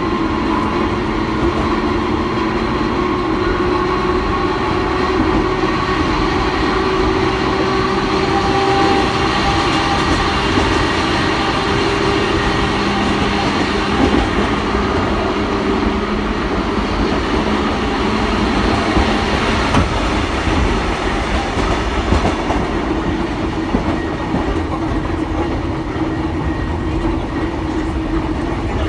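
Kotoden retro electric car 120 running, heard from inside the car with its windows open: a steady rumble with a pitched hum that shifts in pitch about a third of the way through, and a few sharp clacks of the wheels over rail joints.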